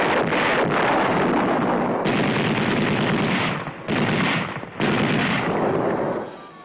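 Battle sounds: dense, continuous gunfire and explosions, with fresh heavy blasts about two, four and five seconds in, dying away near the end.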